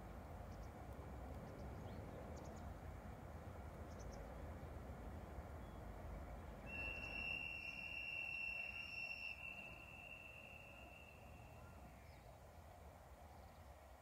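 An EH500 electric freight locomotive's horn, sounded for an unguarded level crossing, heard as one long, steady high note in the distance about 7 s in, fading away over a few seconds. Faint outdoor background with a few high bird chirps before it.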